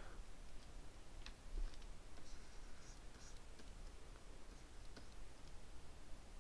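Faint, sparse clicks and light scratchy taps of a pen stylus working on a graphics tablet, over low steady room noise.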